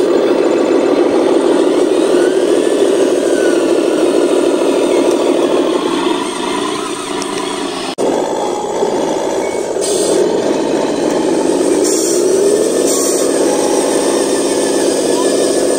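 Truck engine running steadily. It drops lower about six seconds in and breaks off abruptly for an instant around eight seconds, then rises in pitch as it revs up between about ten and thirteen seconds, with a few short hisses.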